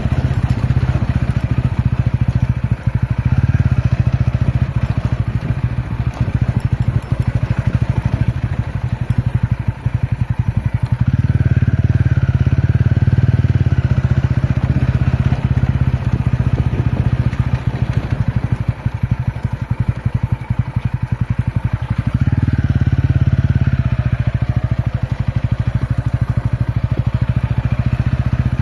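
TVS Ronin single-cylinder motorcycle engine running under way, with a steady low note. It swells twice as the throttle is opened, about eleven seconds in and again about twenty-two seconds in.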